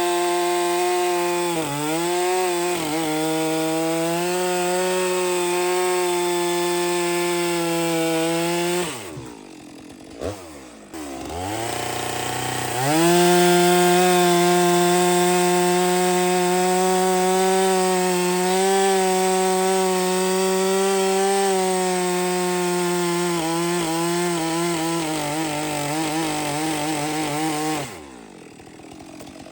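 Stihl two-stroke chainsaw cutting through logs at full throttle, the engine note steady under load with a couple of brief dips early on. About nine seconds in the throttle is let off and the saw drops to a low idle, then it revs up again for another long cut and is let off near the end.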